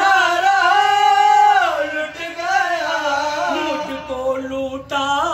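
A man singing a qawwali, stretching the line into long drawn-out notes that glide up and down, with two long held notes, one at the start and one near the end.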